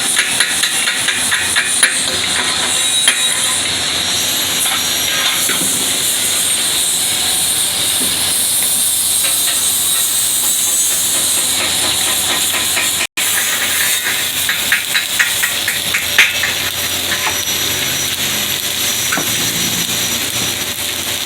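Stick (shielded metal arc) welding with a 7018 1/8-inch electrode: the arc hisses steadily with a constant sharp crackle and pops. It drops out for an instant about two-thirds of the way through, then carries on.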